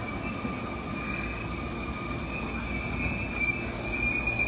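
Sotetsu 20000 series electric train arriving at a platform and slowing to a stop: a steady high whine over a low rumble of wheels on rail, the rumble growing toward the end.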